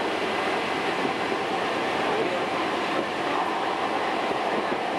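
Hankyu Kyo-train electric train running along the line, a steady rumble of wheels and rail heard from inside the car.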